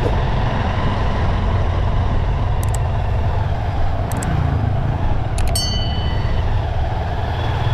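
Steady low rumble of wind and road noise from a moving bike. Mouse-click sound effects come about a second and a half apart, and a short bell ding follows the third click.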